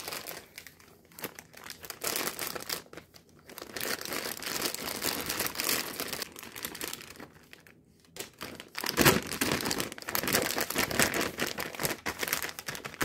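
Plastic bags crinkling as they are handled: a reusable FoodSaver zipper bag is opened and a plastic bag of carrots is pushed inside. It comes in two spells, the second, starting about nine seconds in, louder.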